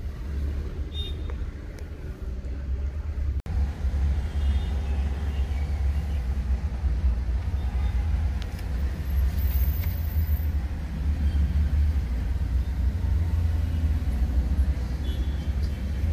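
Steady low rumble of engine and road heard inside a moving Maruti Ignis, with faint surrounding traffic noise. It drops out for an instant about three and a half seconds in.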